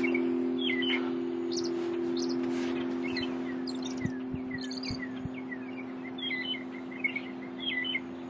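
Wild songbirds chirping and calling in many short, quick notes, some sweeping downward, over a steady low drone of two held tones.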